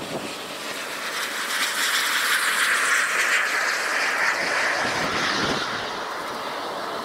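A vehicle passing at a distance: a rushing noise that swells over the first few seconds and then slowly fades.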